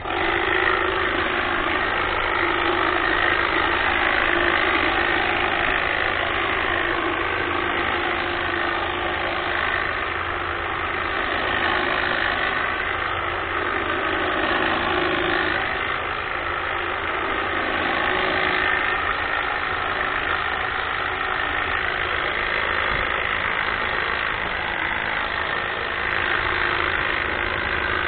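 Greenworks battery-powered hedge trimmer running with a steady mechanical buzz, switched on abruptly at the start and kept going, its level swelling and dipping slightly.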